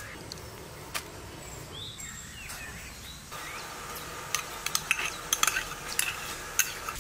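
A metal spoon clicking and scraping against a small ceramic cup and bowl in a quick irregular run as a thick cream is spooned out. Before this, faint bird chirps sound over a quiet outdoor background.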